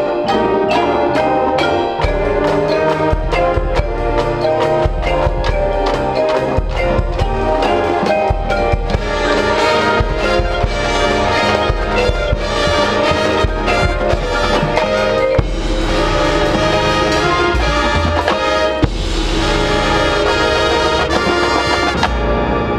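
Marching band playing: brass with drums and front-ensemble mallet percussion, over a strong low bass.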